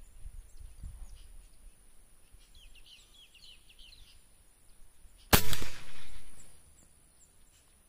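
Air rifle firing a single shot about five seconds in: a sharp crack followed by a shorter, quieter tail that dies away within about a second. Short bird chirps are heard before the shot.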